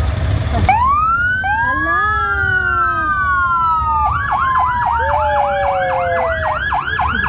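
Fire truck siren wailing in long rising and falling sweeps, then switching about four seconds in to a fast yelp of about three sweeps a second, over the low rumble of truck engines.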